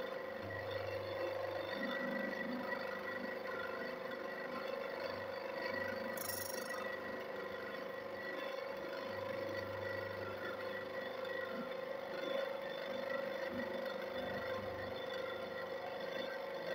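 Homemade chain-sharpening grinder's 300 W electric motor running with a steady whine, spinning its thin grinding disc. About six seconds in there is a brief high hiss.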